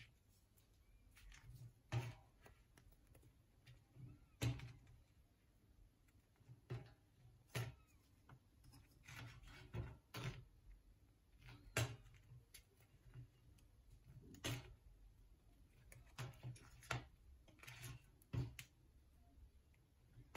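Faint, scattered clicks and taps, about one a second at irregular spacing, as a papad is lifted and turned with wooden tongs on a wire roasting rack.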